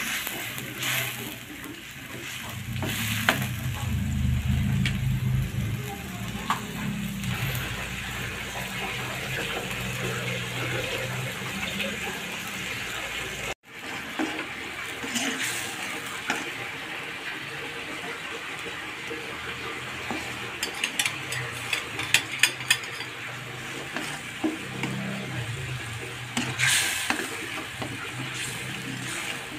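Ground spice paste sizzling as it fries in oil in a wok, stirred with a metal spatula that scrapes and clicks against the pan. The sound drops out for an instant about halfway through, and a run of light clicks follows later.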